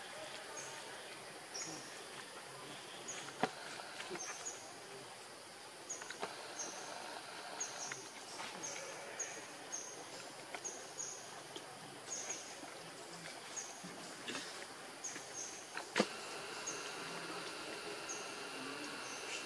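Outdoor forest ambience: short high chirps repeat irregularly every half second or so over a steady hiss, with a few sharp clicks, the loudest about sixteen seconds in.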